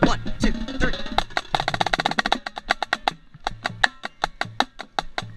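Marching snare drum struck with sticks: a run of sharp, crisp strokes with a fast roll about two seconds in, then evenly spaced taps. Occasional lower drum beats sound under them.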